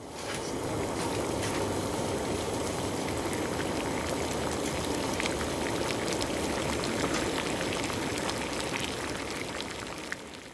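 Water at a rolling boil in a frying pan, bubbling and popping steadily as a dried lotus leaf is blanched in it, fading near the end.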